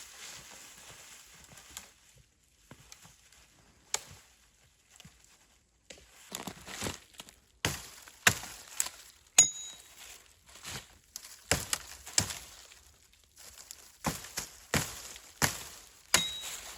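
Wood being chopped with a hand tool: irregular sharp strikes and cracks, a few at first, then about a dozen in the second half, two of them followed by a brief high ring.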